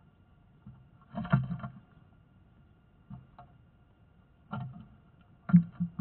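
Thumps and scrapes against a wooden nest box, heard from inside it as birds land and scrabble on the outside. They come in four short irregular clusters; the first, about a second in, and the last, near the end, are the loudest.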